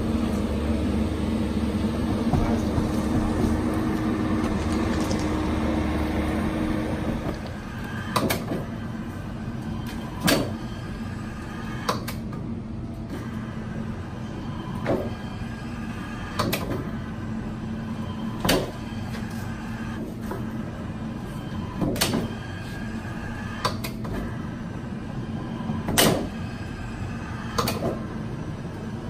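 A steady engine hum with a held tone, which drops away about seven seconds in. After that, a Roddie R8 hydraulic pipe-bursting machine works over a lower steady hum, with a sharp metallic clack about every two seconds as it pulls the steel cable stroke by stroke.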